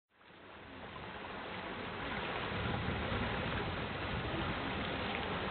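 Steady wind and water noise, with wind rumbling on the microphone, fading in over the first two seconds.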